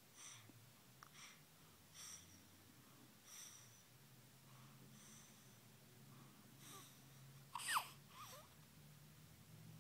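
Faint, wheezy nasal breathing of a three-week-old baby: short snuffly breaths about once a second, with one brief louder squeak about three-quarters of the way through.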